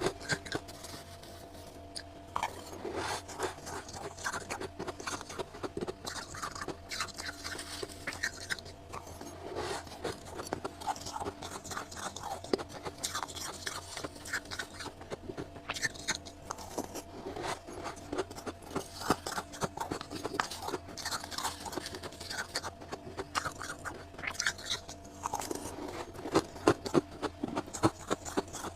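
Close-up crunching and chewing of freezer frost, a dense run of crisp, irregular crunches that thickens about two seconds in.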